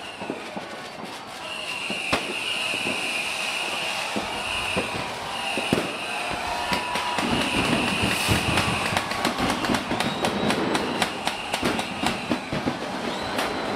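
Distant New Year's Eve fireworks and firecrackers going off across a city, a dense run of bangs and crackles that grows busier through the second half. Several high, steady whistles sound in the first half.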